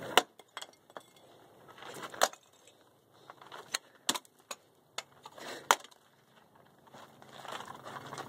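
A series of sharp, separate clicks and clatters, several seconds apart, from small objects tossed at a removed seat's side-airbag trigger and landing on the seat and gravel. Footsteps on gravel come in near the end. The airbag does not go off.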